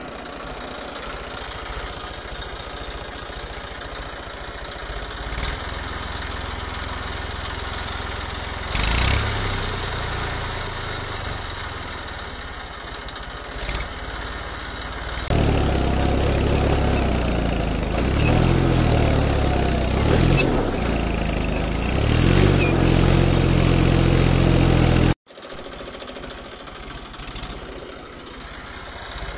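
Tractor engine running at a steady idle, its sound changing abruptly at cuts about 15 and 25 seconds in. The middle stretch is the loudest and fullest.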